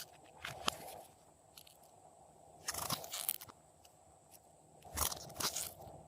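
Slime being squished and pressed by hand, giving crackly, crunching pops in three bouts, near the start, about three seconds in and about five seconds in.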